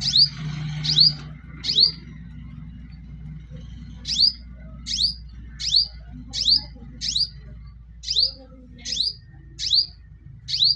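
A small bird repeatedly giving short, sharp chirps, about two a second, each a quick high sweep; after the first four there is a break of about two seconds before the chirping resumes.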